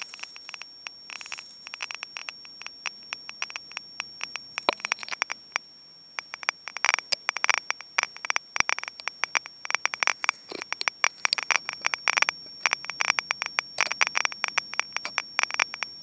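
Small loudspeaker on a homemade scintillation detector clicking at random, several clicks a second in uneven clusters. Each click is one pulse from the photomultiplier tube, squared to a single height by a logic chip, and marks a particle or gamma ray striking the scintillator, much like a Geiger counter.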